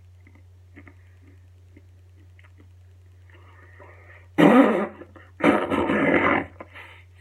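A man's put-on sneezing and coughing fit, faking a cold: two loud, harsh blasts straight into the microphone, about four and a half and five and a half seconds in.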